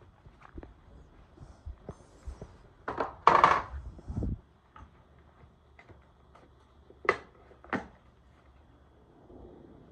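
Scattered knocks and clicks of tools and parts being handled, with a louder rough clatter lasting about a second about three seconds in and two sharp clicks about seven seconds in.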